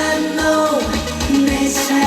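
Live trot song: a male singer holding notes over a backing track with a steady beat.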